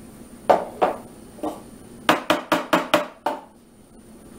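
Hard plastic knocks as a food processor bowl is lifted off its base and handled: three separate knocks in the first second and a half, then a quick run of about six knocks a little after two seconds in.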